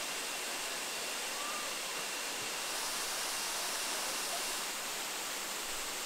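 Waterfall pouring into a rock pool: a steady rushing of water.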